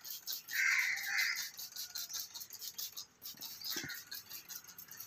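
Hand trigger spray bottle squirting engine degreaser in quick repeated pulls, a short hiss with each squeeze. A brief high chirp-like sound comes about a second in.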